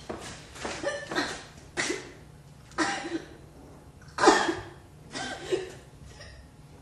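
A woman choking and gasping under a hand on her throat, short strained coughs and gags roughly once a second, the loudest a little past four seconds in.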